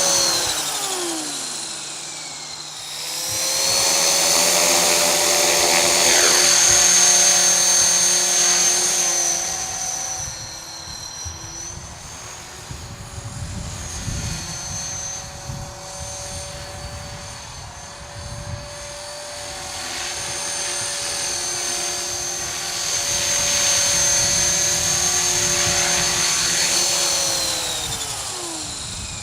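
Copter X 450 radio-controlled helicopter in fast forward flight, its rotor and motor whine swelling as it comes near and fading as it moves off, with the pitch dropping sharply as it passes by near the start and again near the end. Gusty wind rumbles on the microphone underneath.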